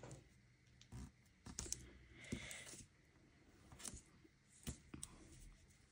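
Faint handling sounds of double-sided adhesive tape being laid along a cardstock glue flap: a few light clicks and taps, with a brief soft rasp about two seconds in.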